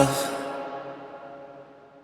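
Background hip-hop song ending: its last chord rings on and dies away to silence over about two seconds.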